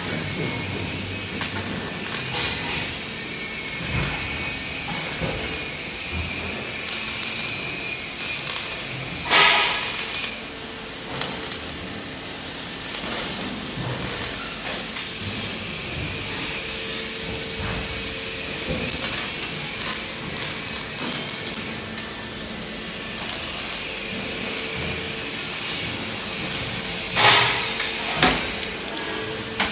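Metal fabrication shop noise: a steady hiss with scattered knocks and clanks of steel, and two louder ringing metal bangs, one about a third of the way in and one near the end.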